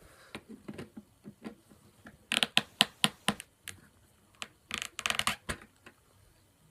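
Old skateboard bearings being worked out of a wheel: a run of sharp metal-and-plastic clicks and knocks, bunched in two quick clusters about two and a half and five seconds in.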